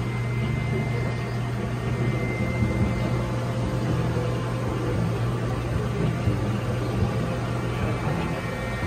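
Steady low hum of running aquarium equipment, pumps and fans, over an even background hiss, with a faint thin whine now and then.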